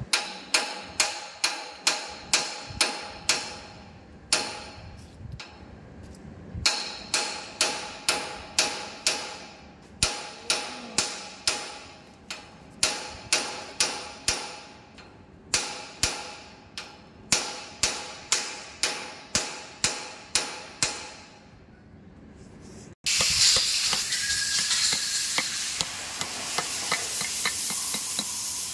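Repeated hammer blows on steel, runs of sharp ringing taps about three to four a second, while seating parts in a BEML BD155 bulldozer transmission bearing housing. About 23 seconds in the tapping stops abruptly and a steady hiss takes over.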